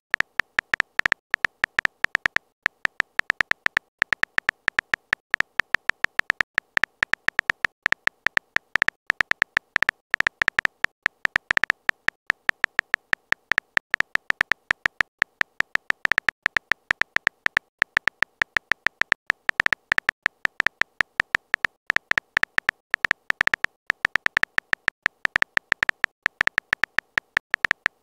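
Texting Story app's keyboard typing sound effect: a rapid, uneven string of short, high-pitched clicks, one for each letter as a message is typed out.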